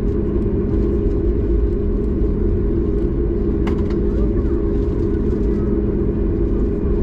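Steady cabin noise inside a Boeing 737 MAX 8 on the ground with its CFM LEAP-1B engines idling: a low rumble under an even hum, with a single sharp click about three and a half seconds in.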